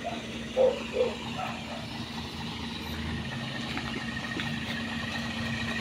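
Diesel truck engine idling with a steady hum, its low rumble growing stronger about three seconds in. Two short sounds come near the start, about half a second apart.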